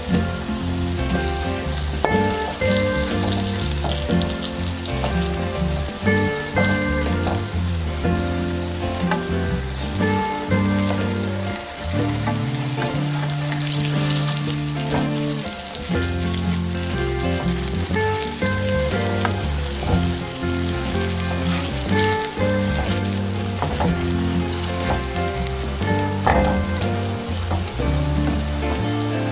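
Flour-dusted zucchini slices sizzling in hot oil in a frying pan, with a wooden spatula now and then knocking against the pan as it turns them. Background music plays along with it.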